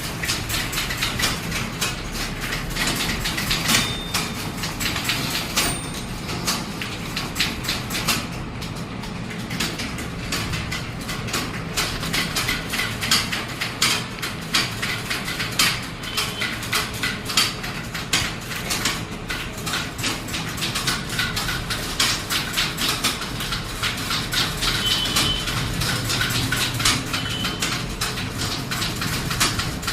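Typewriter keys clattering in rapid, continuous strikes, several a second, with a few short high pings among them.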